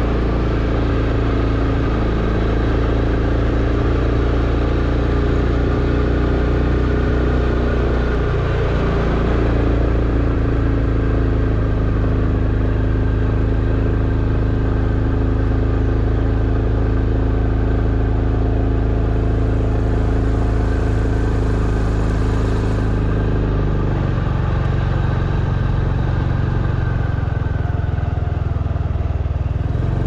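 Motorcycle engine running steadily while riding on the road. Its engine note shifts about eight seconds in and changes again near the end.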